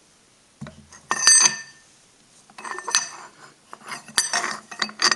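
Metal bar and workpiece clinking and scraping against each other and the steel machine vise as they are set in place by hand: a ringing clink about a second in, then more clinks and scrapes around three seconds and again four to five seconds in.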